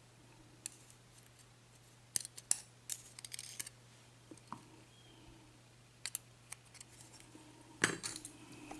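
Small metal lock parts and tools being handled, giving faint, scattered clicks and light metallic clinks in a few short clusters.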